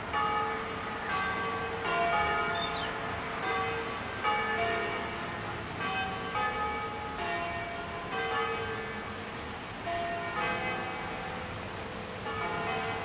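Several church bells ringing together in a continuous peal, the strikes coming about once or twice a second, each one ringing on into the next.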